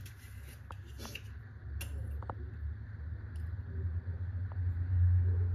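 A few faint, light metallic clinks of a spoon being handled among spice jars while a spice is scooped, over a steady low hum that grows louder near the end.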